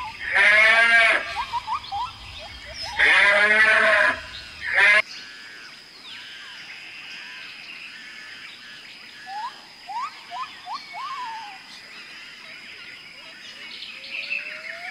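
Two loud quavering bleats in the first four seconds and a short third one about five seconds in, from sheep-like livestock. After them the sound drops to a quieter background with a few short rising chirps.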